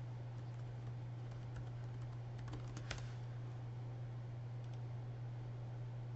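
Computer keyboard keystrokes typing a short word, faint scattered clicks with a few sharper ones in the middle, over a steady low hum.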